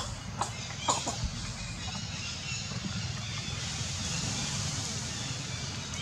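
Outdoor ambience with a steady hiss and low rumble, and a few short sharp animal calls about half a second and a second in.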